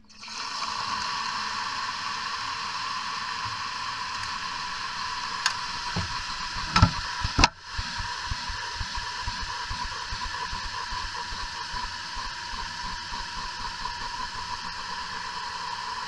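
Calcium carbide fizzing steadily as water hits it, the reaction hissing as it gives off acetylene gas. A few knocks and a hard clunk come about six to seven and a half seconds in, as the microwave door is shut.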